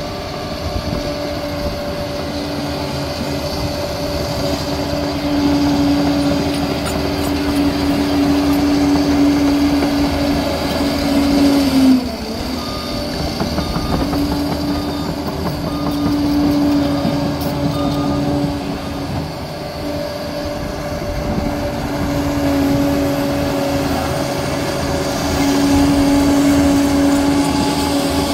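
Liebherr 746 crawler dozer's diesel engine running under load, swelling and easing several times as it works. Its note drops sharply near the middle. Then the reversing alarm beeps about once a second for a few seconds.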